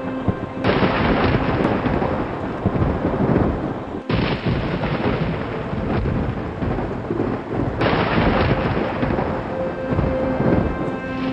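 Thunderstorm: thunder rumbling over steady heavy rain.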